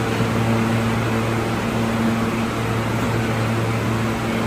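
Steady mechanical hum of ventilation or air-conditioning equipment, with a low, even electrical drone underneath and no change throughout.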